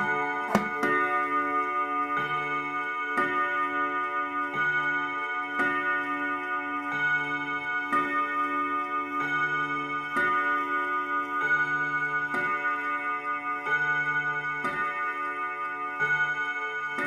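Junghans W278/201 mantel clock striking bim-bam on five gong rods: the hammers alternate between two chords about once a second, and the rods ring on between blows.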